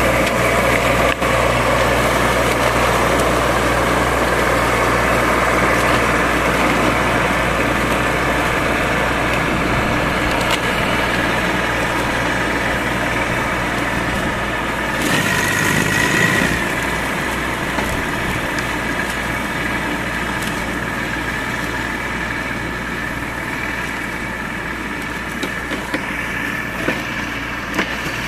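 Baroness LM320AF ride-on front-deck mower running steadily while it cuts roadside grass. It grows gradually quieter over the second half as it moves away.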